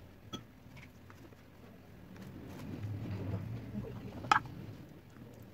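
Faint kitchen handling sounds of rolls being assembled by hand: a spoon spreading paste on a roll wrapper and filling being laid on, with a low rumble building in the middle. One sharp clink of a metal spoon, likely against the glass bowl of paste, a little over four seconds in.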